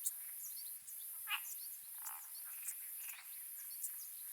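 Wild ambience: a steady high insect hiss with many short, quick chirps and a few brief croaking calls, about one every second or so.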